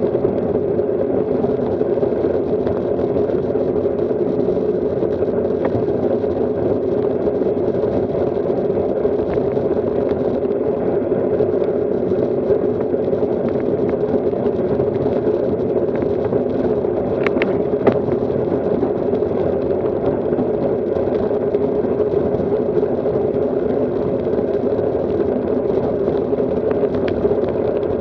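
Steady rolling noise of a road bike's tyres on asphalt, mixed with wind rushing over the bike-mounted camera's microphone as the bike rides along. A few brief clicks come about two-thirds of the way through.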